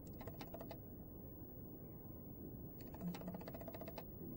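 Faint clusters of quick, light clicks over low room hiss: one flurry at the start and another near the end.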